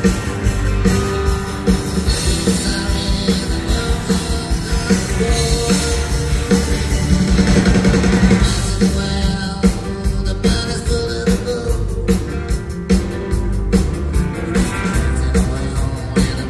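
Live rock band playing: electric guitars, pedal steel, bass and drums with a steady beat, heard on an audience recording in a concert hall.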